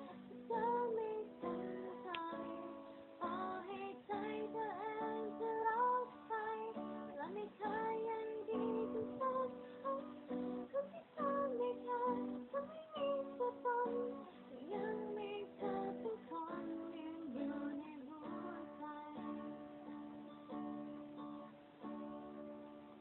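A Thai song with plucked and strummed guitar accompaniment and a woman's singing voice, cut off above 4 kHz by the stream's low-bandwidth audio. The music grows softer near the end.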